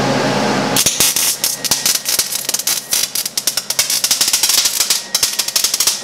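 Welder crackling and spitting as a bead is laid on a steel exhaust pipe, an irregular rapid crackle that starts about a second in.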